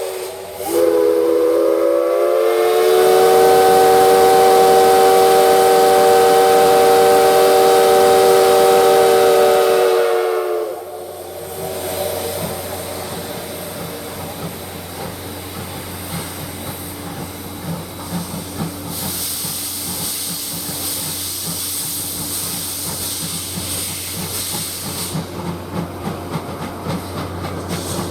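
Steam locomotive whistle: one long chord-like blast of about ten seconds that rises into pitch at its start and cuts off. After it comes the steam-hauled train running, with a fast rhythmic beat and bursts of steam hiss.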